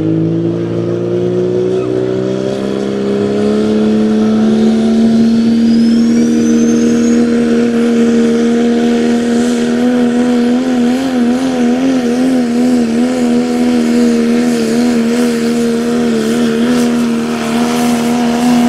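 Diesel Ford Super Duty pickup's engine at full throttle, pulling a weighted sled: the revs climb over the first few seconds, then hold high and steady. In the second half the pitch wavers rapidly up and down, and a faint high whistle rises briefly about five seconds in.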